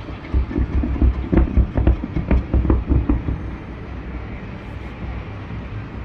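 Distant fireworks going off in a rapid run of booms and cracks for about three seconds, then a steady low rumble.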